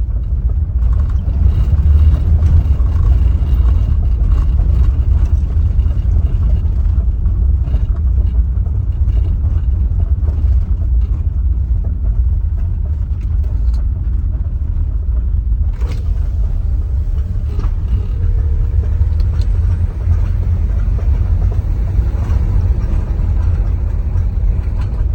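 Mitsubishi L200 pickup driving over cobblestones: a continuous low rumble from the tyres and body, with occasional knocks from the rear suspension, the clearest about two-thirds of the way through. The knocking comes from worn rubber bushings on a rear shock absorber.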